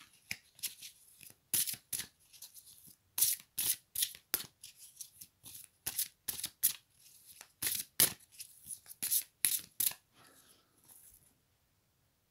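A deck of oracle cards being shuffled by hand: a run of quick, irregular flicks and rustles of card against card, dying away a little over a second before the end.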